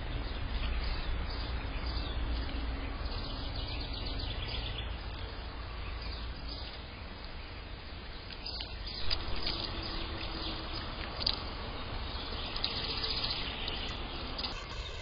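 Outdoor ambience with bird chirps over a steady low rumble.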